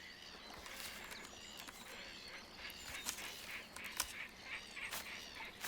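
A colony of black-headed gulls calling, with many short, harsh calls overlapping and repeating throughout, and a few sharp clicks.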